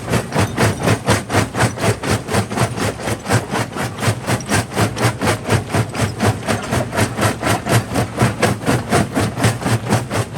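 Primary jaw crusher running and crushing rock, with a steady rhythmic pounding at about three to four strokes a second.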